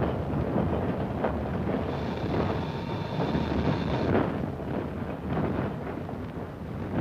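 Low rumbling running noise of a 1950s diesel multiple unit railcar with irregular knocks, as the brakes are applied for a normal station stop.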